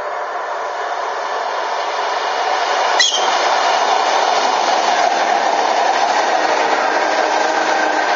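An ER2K electric multiple unit approaches and passes close by. Its running noise grows louder until the front arrives, then becomes a steady rush of carriages rolling past. About three seconds in, as the front comes level, there is one brief, sharp, high-pitched sound.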